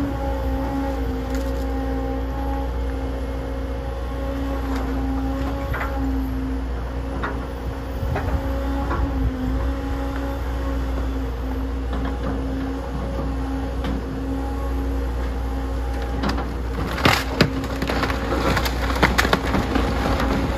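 Tracked CAT excavator running with a steady engine hum while its bucket tears apart a wood-frame house: timber cracks and splinters and debris crashes down, with a cluster of louder sharp cracks and crashes near the end.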